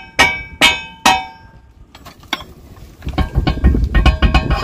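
Hammer blows on metal, about two a second, each one ringing, stopping about a second in. Later come small metallic clinks with wind rumbling on the microphone.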